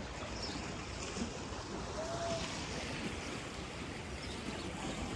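Lake water lapping at the shore: a steady, even wash of noise.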